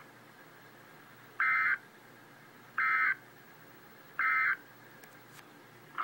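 Emergency Alert System end-of-message signal: three short, identical bursts of digital data squawk, about a second and a half apart, marking the end of the alert.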